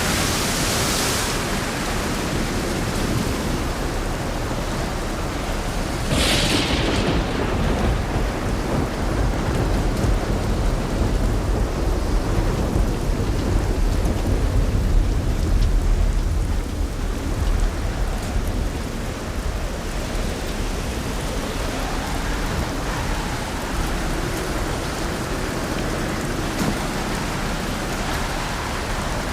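Heavy thunderstorm rain falling steadily, with a sharp burst near the start and another about six seconds in, then a long low rolling rumble of thunder that fades after about seventeen seconds.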